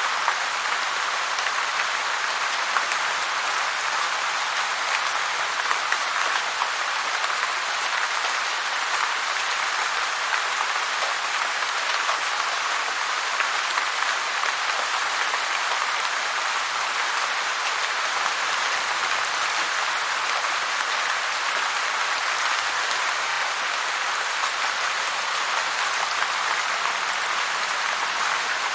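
Heavy rain falling steadily, a dense even hiss of drops with fine crackle throughout and no change in strength.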